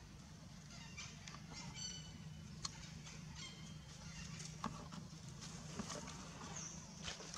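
Faint short high-pitched animal calls, a few in the first half, with several sharp clicks scattered through and a low steady hum underneath.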